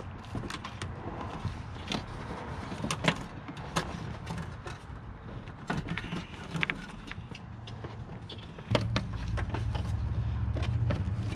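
Scattered clicks, taps and rustles of hands handling wiring and plastic trim in a car's engine bay. About nine seconds in, a steady low hum starts and keeps going under the handling noises.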